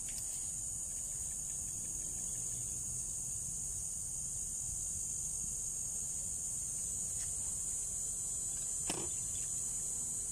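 Steady, high-pitched chorus of insects, with a low rumble underneath and one brief knock about nine seconds in.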